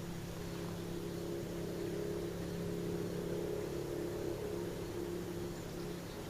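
A steady low engine-like hum from a distant motor, swelling slightly partway through and easing off near the end.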